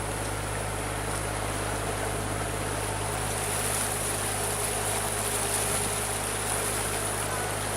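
Canal tour boat's motor running steadily, a low even hum with a hiss over it.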